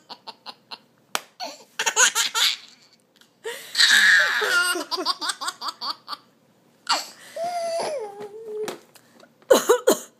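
A baby laughing in several separate bursts, with a longer drawn-out voiced sound falling in pitch about two-thirds of the way through.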